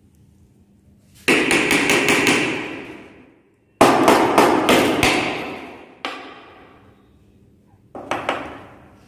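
Three bouts of rapid hammering, each a quick run of sharp blows that rings and dies away over a second or two: about a second in, near the middle, and near the end.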